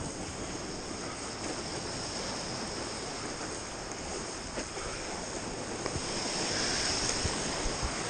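Sea water washing and surging, with wind rumbling on the microphone; the wash grows a little louder over the last couple of seconds.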